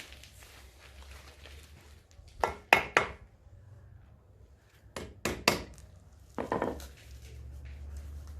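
Sharp metallic taps and clicks, in three short groups, as a retaining ring (circlip) is worked into its groove over a newly fitted front wheel bearing in the hub knuckle.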